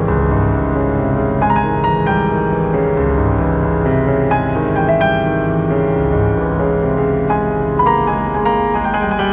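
Jazz piano trio playing live: piano notes and chords ringing out over long low bass notes that change every few seconds.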